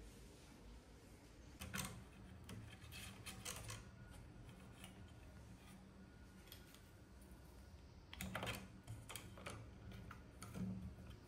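Faint, irregular clicks and taps of hands handling 3D printer parts, as a 3D-printed plastic holder is fitted onto the top of a lead screw on the printer frame. The taps come in clusters about two, three and eight seconds in, with another near the end.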